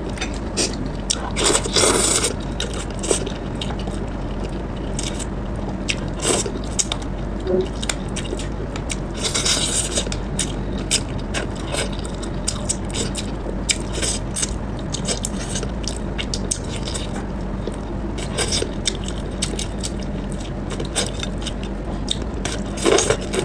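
Close-miked eating of bony braised fish with chopsticks: wet chewing, lip smacks and many small sharp mouth clicks, with a couple of longer hissy slurps about two seconds in and near ten seconds, over a steady low hum.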